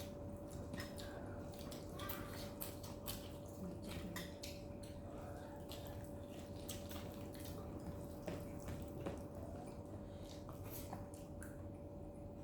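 Scattered light clicks and taps, irregular throughout, over a steady faint hum.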